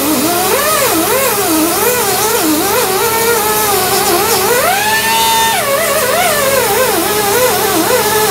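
Instrumental music: a melody that slides and bends in pitch over a steady drone, in the style of Indian classical music.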